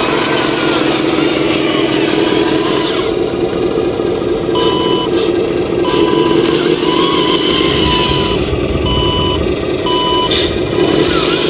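Small electric motor and gearbox of a miniature RC truck whirring steadily, with a run of short electronic beeps, about one a second, from about halfway in, like a truck reversing alarm.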